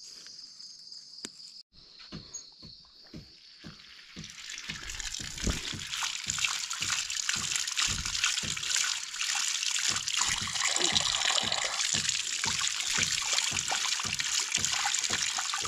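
Water pouring from a hose pipe over a hand rinsing freshly picked coriander greens, splashing onto a concrete stand. The pouring starts about four seconds in and then runs steadily.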